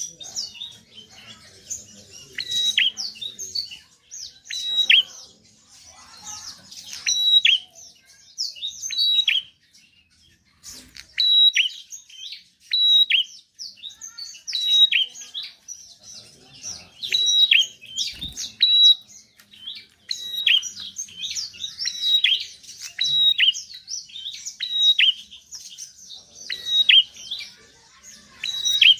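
Prinia (prenjak) singing in loud, rapid phrases of sharp chirps that repeat every second or two, with a brief pause about ten seconds in.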